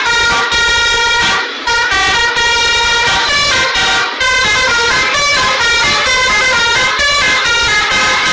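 Telolet horn, a multi-tone bus air horn, playing a fast melody of stepping notes, with short breaks about one and a half and four seconds in.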